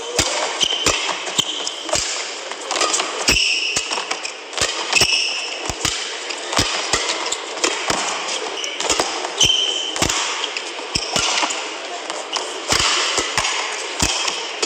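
Badminton rally: rackets striking the shuttlecock again and again at an irregular pace, with shoes squeaking briefly on the court, over a steady murmur from the arena crowd.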